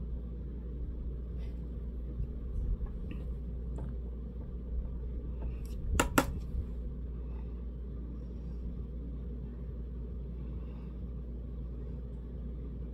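Steady low background rumble with scattered faint clicks and taps of makeup tools and palettes being handled, and two sharp clicks close together about six seconds in.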